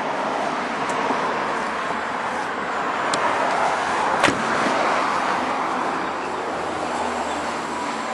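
Nissan S15 Silvia Spec R's turbocharged SR20DET four-cylinder running at a steady idle through its aftermarket exhaust, with a single sharp knock about four seconds in.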